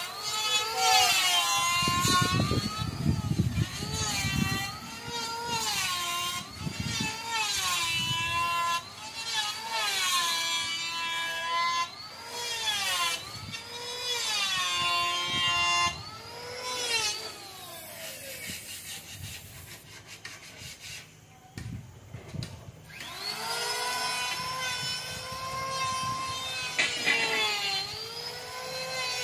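Handheld electric power tool working timber, its high whine dipping in pitch and climbing back again and again as it bites into the wood, with a steadier run near the end.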